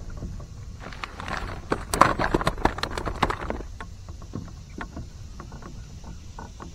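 Knocking, clattering and splashing around a fishing kayak as gear is handled, lasting about three seconds, followed by scattered light ticks of water dripping from the paddle blade onto the water.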